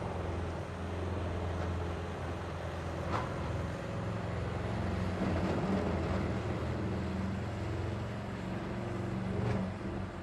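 A machine tool's motor running steadily with a low hum, with a faint click about three seconds in and another near the end.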